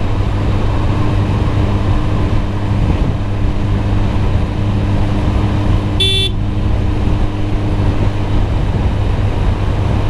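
Kawasaki Z900 inline-four with a Yoshimura full exhaust running at a steady cruise, with wind rush on the microphone. A short horn toot sounds about six seconds in.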